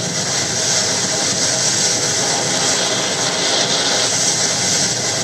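Steady, loud rushing noise of a boat under way: wind and churning wake water, with an engine running beneath.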